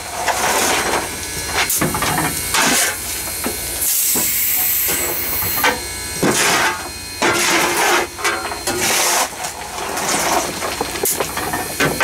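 Steam locomotive cab noise on Southern Railway 2-8-0 No. 630: a steady hiss of steam with irregular louder rushes every second or so.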